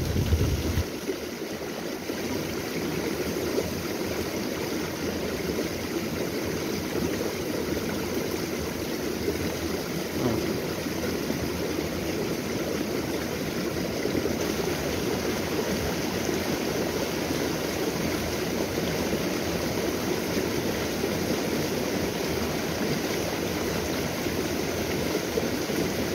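Small stream flowing, a steady rush of water.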